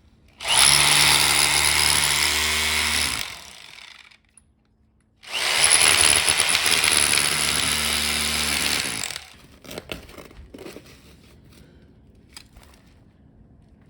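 Electric hammer drill running in two bursts of about three and four seconds, with a short pause between, followed by a few faint clicks and knocks.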